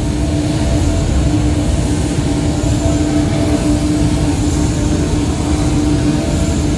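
Loud, steady low rumbling drone with a hum that pulses on and off about once a second, played through the sound system of an immersive light-and-sound installation.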